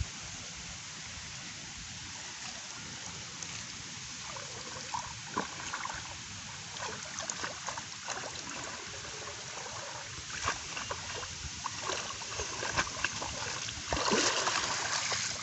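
Shallow water sloshing and splashing around a person's legs as he wades and hauls in a wet cast net, over a steady background hiss. The splashes come more often after the first few seconds, with the loudest near the end as a foot steps out of the water toward the bank.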